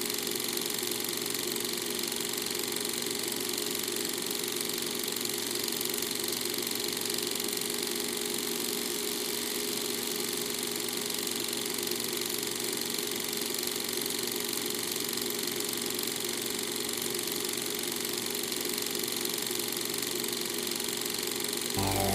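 Steady mechanical hum and rumble inside a train carriage, unchanging throughout. Music with deep bass and sweeping tones comes in just before the end.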